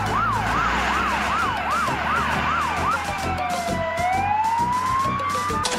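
Fire engine siren: fast warbling sweeps, about three a second, then a slow fall and rise in pitch into a wail, over a steady low rumble. It cuts off just before the end.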